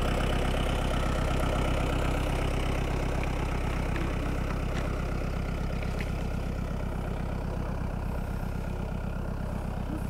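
Farm tractor engine running steadily, a low even hum with a fine regular firing pulse, slowly getting a little quieter, as it tows the tour wagon to the next plots.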